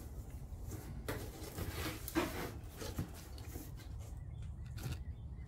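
Cardboard packaging being handled: faint rubbing with a few light knocks and scrapes as the cardboard insert of a subwoofer box is touched and moved.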